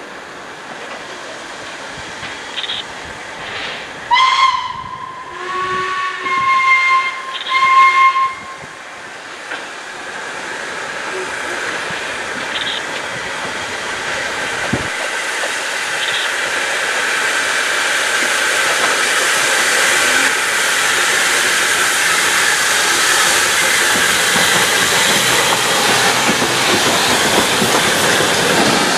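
Steam locomotive whistle sounding in about four short blasts from about four to eight seconds in. After them comes the growing hiss and running noise of a steam train approaching and passing close, the BR (GWR) 1500 Class 0-6-0 pannier tank No. 1501 hauling coaches.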